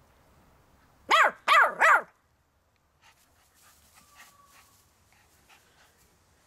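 Jack Russell–Chihuahua cross puppy barking three times in quick succession, short high-pitched yaps.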